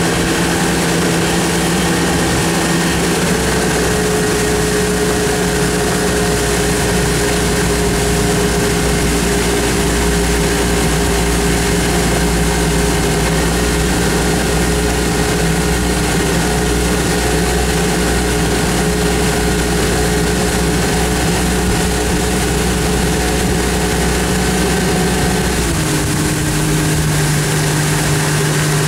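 Tow boat's engine running steadily at towing speed over a steady hiss of wash and wind. Its pitch rises slightly about three seconds in and drops near the end as the boat throttles back with the wakeboarder down in the water.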